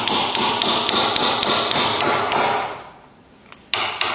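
Hammer striking a hand-forged chisel as it is driven into wood to chop out a notch, at about four blows a second. The blows stop just under three seconds in, and one more knock comes near the end.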